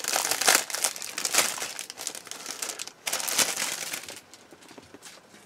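Clear plastic bag crinkling and rustling as a plastic model-kit sprue is slid out of it, dying away about four seconds in.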